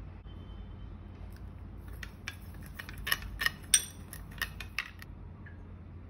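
Metal spoon clinking against a small glass bowl while stirring yeast and sugar: a quick run of light clinks from about two seconds in until nearly five, with one sharper clink in the middle.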